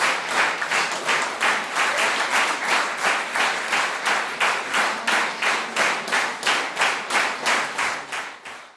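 Theatre audience clapping in unison in a steady rhythm, about three claps a second, fading out at the very end.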